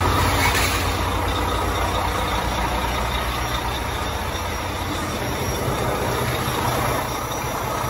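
Truck's diesel engine idling steadily, heard up close, a low pulsing rumble under a broad mechanical din.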